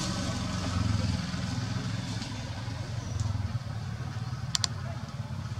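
Low, steady rumble of a motor vehicle engine running nearby, with a brief high double chirp about four and a half seconds in.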